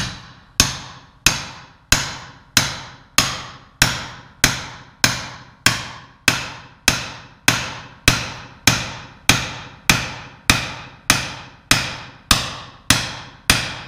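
Hammer striking a metal punch to drive a press-fit wrist pin out of a Dodge 4.7L V8 piston: steady, evenly spaced blows about one and a half a second, each with a short metallic ring. The pin is tight and is slowly giving way under the blows.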